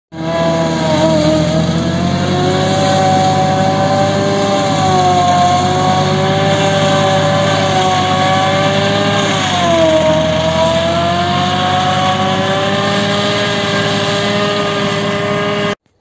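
Compact tractor engine driving a single-row Celmak forage harvester under load, chopping miscanthus stalks and blowing them into a trailer. The engine's pitch wavers and sags briefly about ten seconds in as the load rises, and the sound cuts off suddenly near the end.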